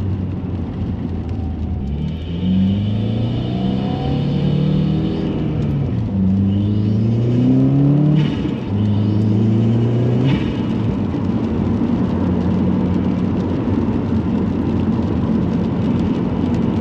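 2018 Subaru WRX's turbocharged 2.0-litre FA20 flat-four, with a GrimmSpeed cast-aluminium turbo inlet, accelerating through the gears. The engine note rises in pitch three times and drops at each gear change, then settles to a steady cruise about ten seconds in. A high whine rides over the first pull, and a short hiss comes as the throttle lifts after the second and third pulls.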